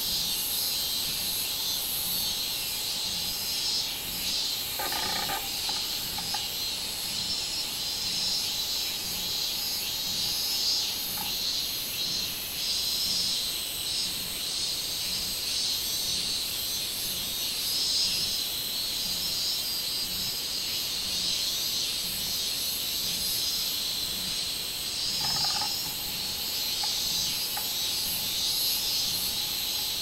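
Robust cicadas (minmin-zemi) singing in the trees: a steady, high-pitched, pulsing drone. A short lower call cuts in briefly about five seconds in and again near the end.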